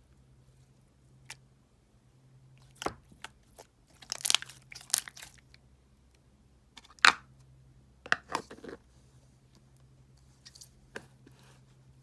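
Irregular short crackling and crunching handling sounds close to the microphone, in scattered clusters with pauses between, over a faint steady low hum.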